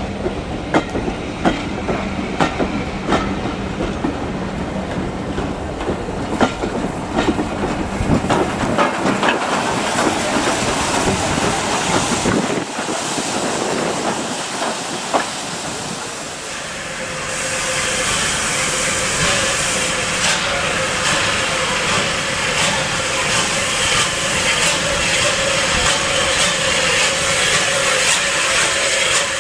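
Passenger coaches rolling past, their wheels clicking rhythmically over the rail joints. After about seventeen seconds comes the loud, steady hiss of escaping steam from a steam locomotive, carrying a held tone.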